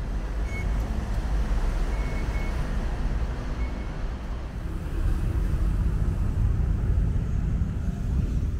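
Steady low rumble of a busy rail-station concourse, with a few short high electronic beeps from the fare gates in the first four seconds. The rumble grows louder in the second half.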